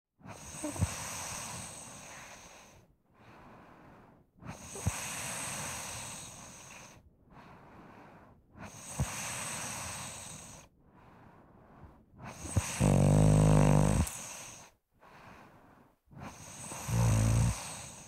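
Snoring in slow breaths, one about every four seconds, each drawn-in breath a noisy rasp with a quieter breath out between. The last two breaths turn into loud, low-pitched buzzing snores.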